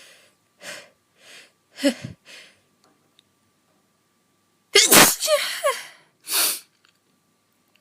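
A woman sneezing once, high-pitched and loud, just before the fifth second, after a few short breaths and a small voiced gasp build up to it; a short breath follows.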